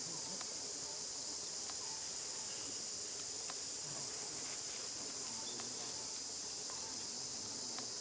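Steady, high-pitched drone of an insect chorus, even in level throughout, with faint scattered clicks and a few short faint chirps beneath it.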